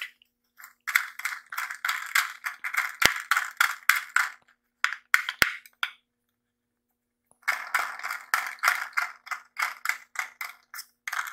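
Plastic toy cement mixer truck handled and turned over in the hands, its plastic parts clicking and rattling quickly and irregularly. The clicking stops for about a second and a half in the middle, then starts again.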